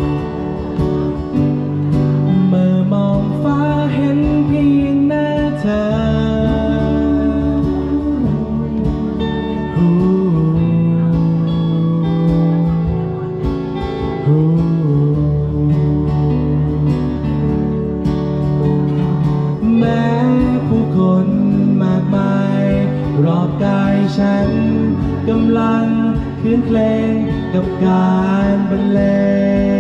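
Live folk band music led by acoustic guitar, playing continuously.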